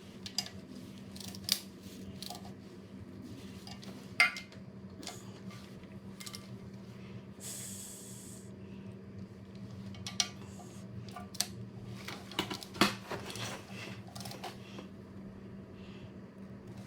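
Irregular metallic clinks and knocks of hand tools and metal parts being handled, with a brief hiss about halfway through, over a steady low hum.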